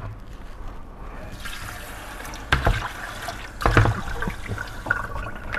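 Kitchen tap running water into a plastic mixing bowl, starting about a second in, to thin a flour coating batter, with two knocks of the bowl against the sink, the second the loudest.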